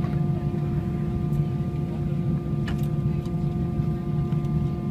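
Jet airliner engines running steadily, heard from inside the passenger cabin: a constant low drone with several steady whining tones over it, and a faint click or two.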